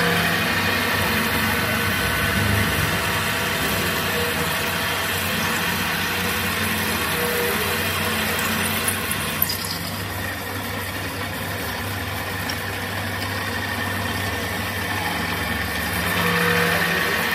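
Drill press running, its bit boring into the end of a steel rod: a steady machine hum with cutting noise, and two sharp clicks about nine seconds in.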